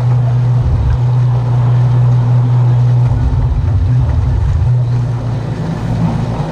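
Outboard motor running steadily with the boat under way, an even hum.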